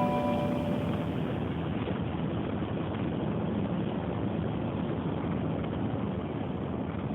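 A steady noise with no clear pitch, as the last held notes of the music fade out within the first second.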